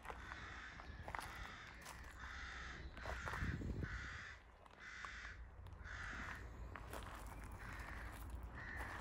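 A crow cawing in a long series of harsh calls, a little more than one a second.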